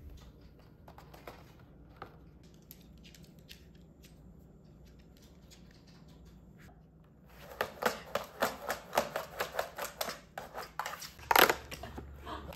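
Fingers picking and scratching at a cardboard dog advent calendar to open one of its perforated doors: a quick run of small clicks and scratches that starts about seven seconds in, with one louder tearing crackle near the end as the door gives.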